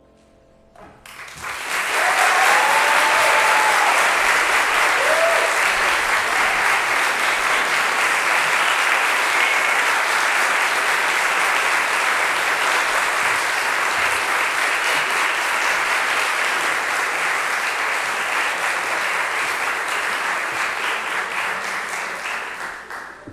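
Audience applauding. The applause starts about a second in, builds within a second and holds steady, then dies away near the end. A few brief voices call out about two to five seconds in.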